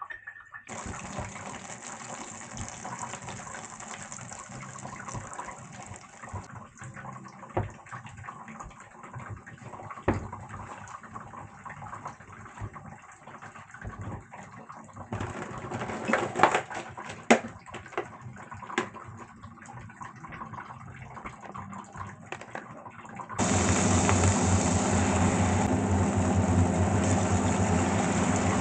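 Stovetop cooking sounds: a pot of water simmering for poaching eggs, with scattered clicks and knocks of utensils against pans. About 23 seconds in, the sound jumps suddenly to a much louder steady sizzling hiss with a low hum under it, as ham slices fry in a frying pan.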